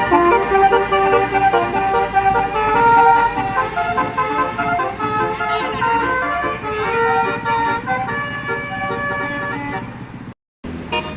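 Bus's telolet basuri musical horn playing a tune: several horn notes sounding together and stepping from pitch to pitch, over low engine noise. The sound cuts out for a moment near the end, then horn notes start again.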